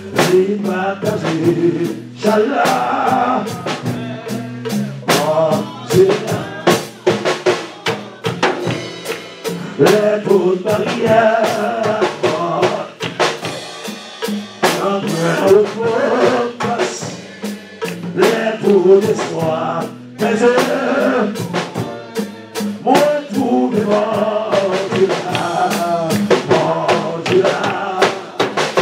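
Live worship music: a drum kit playing a busy beat under singing.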